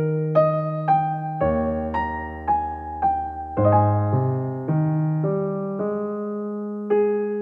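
Background piano music: a slow melody of single notes, one about every half second, over long held bass notes.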